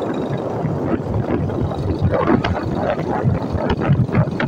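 Wind buffeting the microphone over the steady road and engine rumble of a moving vehicle, rising and falling in gusts.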